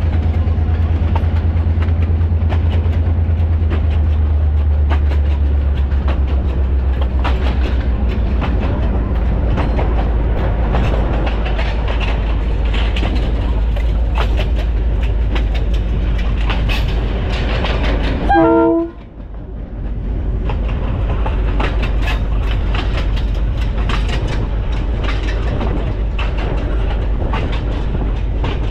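Diesel locomotive running along the track, heard from the cab: a steady low engine drone under the clatter of wheels over rail joints. A short horn blast sounds about two-thirds of the way through, and the sound briefly drops away just after it.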